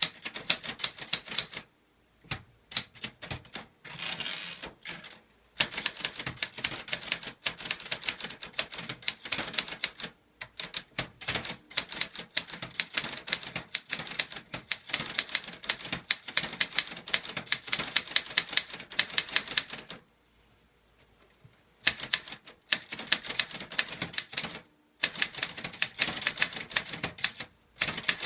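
Clover Top Star 10s Korean manual typewriter typed without an ink ribbon: quick runs of key strikes, several a second, broken by brief pauses and one longer pause about two-thirds of the way through.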